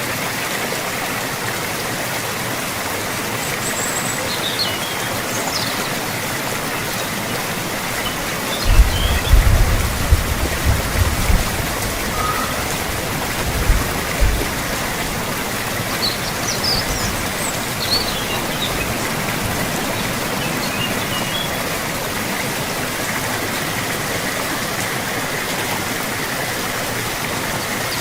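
Steady rain with a constant rush of running water, and faint bird chirps now and then. A cluster of low thuds comes about a third of the way in, with another near the middle.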